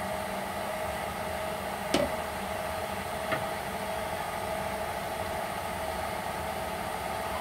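Steady electric appliance hum with a constant whine. A single sharp knock about two seconds in, as a spatula is set down in a non-stick wok, and a lighter tap a little later.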